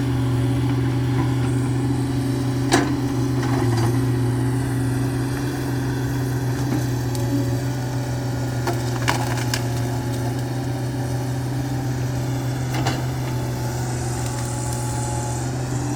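Hitachi excavator's diesel engine running steadily, with several sharp cracks of rubber-tree wood splintering and breaking as the machine fells trees; the loudest crack comes nearly three seconds in.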